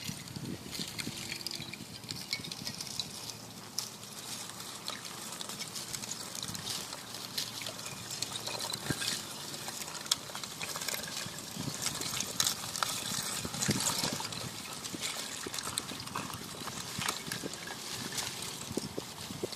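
Drifting pieces of melting lake ice clinking and tinkling against one another in constant small clicks, with water trickling among them.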